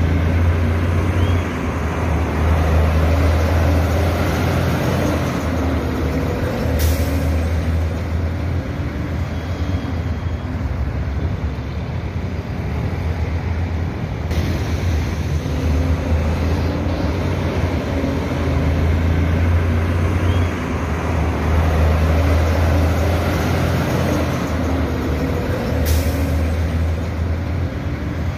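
Kenworth W900L semi truck's diesel engine pulling a loaded container under hard throttle, its low drone shifting in pitch in steps. Two brief air hisses cut in, one about a quarter of the way through and one near the end.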